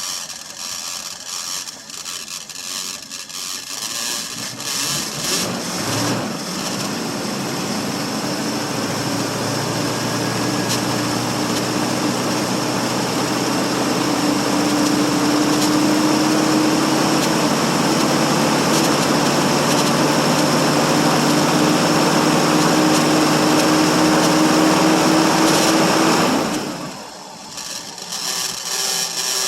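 1963 Ford Thunderbird's 390 FE V8, run after sitting about three years, idling quietly and smoothly under a steady whine from a noisy power steering pump. The sound grows louder over the first several seconds and falls off sharply near the end.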